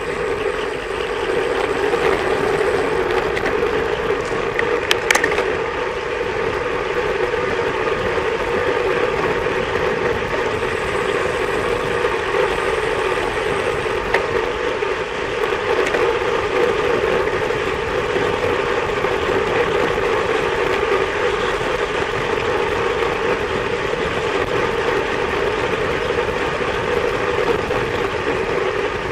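Steady rush of wind and road noise on a bike-mounted camera's microphone as a bicycle descends at about 28 mph, with a couple of sharp clicks about five seconds in.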